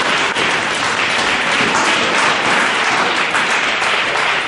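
Hall audience applauding at the end of a table tennis rally: a steady, dense patter of many hand claps.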